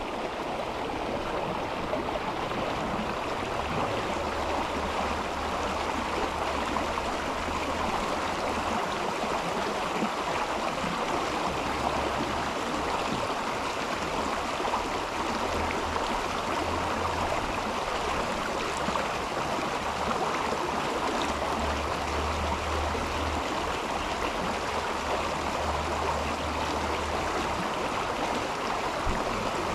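Mountain river water flowing over rocks, a steady, unbroken rush.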